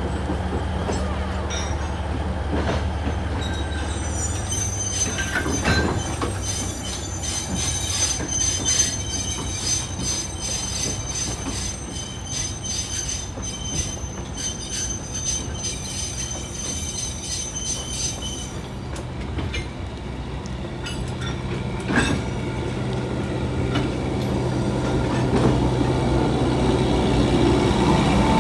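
Narrow-gauge train running on the rails with a low rumble and rail clatter; its wheels squeal in a high, steady screech from about four seconds in until about eighteen seconds. A single sharp clack comes about twenty-two seconds in.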